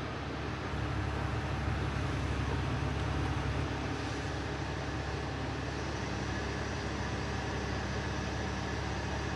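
Heavy rotator tow truck's diesel engine running steadily, a constant low drone.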